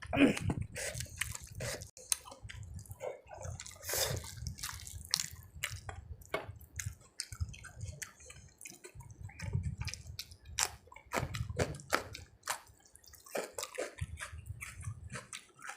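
Close-miked wet eating sounds: chewing and squishing of rice and curry, with many small wet clicks and smacks.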